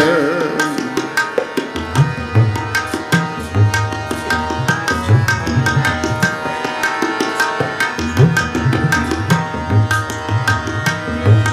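Tabla playing a quick rhythm with deep bass-drum strokes over held harmonium chords: the instrumental interlude between sung lines of Sikh kirtan. A sung note trails off at the very start.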